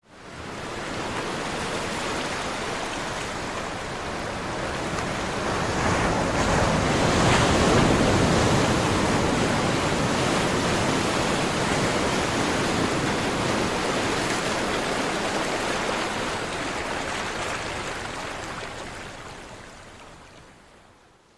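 Caribbean sea surf: a continuous wash of breaking waves that swells to its loudest about seven seconds in, then slowly fades away near the end.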